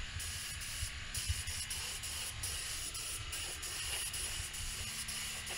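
Gravity-feed spray gun atomising paint with compressed air: a steady hiss, with an uneven low rumble underneath.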